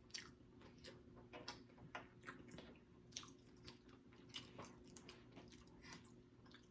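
A person biting and chewing food close to the microphone: faint, wet smacks and clicks at an uneven pace.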